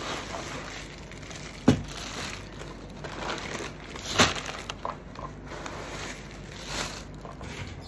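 Thin plastic shopping bags rustling and crinkling as they are handled and pulled open, with two sharp knocks, one under two seconds in and a louder one about four seconds in.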